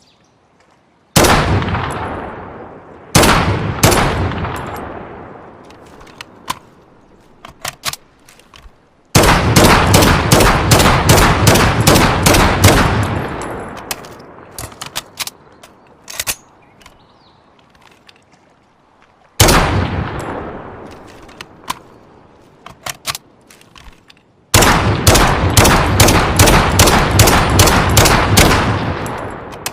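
Dragunov sniper rifle firing, as a sound effect: single shots and two fast strings of shots, each report trailing off in a long echo. Small faint clicks fall in the gaps between the shots.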